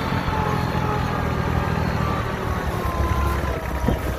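Iseki TS3910 tractor's diesel engine running steadily, heard close behind the tractor as it drives.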